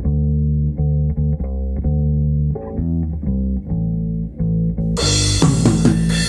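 Electric bass guitar playing a repeated riff on its own, then the full ska-punk band comes in about five seconds in, much fuller and brighter.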